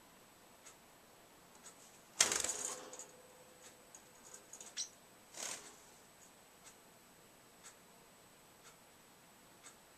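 Parrotlet scrambling on the wire cage: a loud metallic rattle about two seconds in with a brief ring, scrabbling clicks, and a shorter rattle about halfway through. A faint tick about once a second continues underneath.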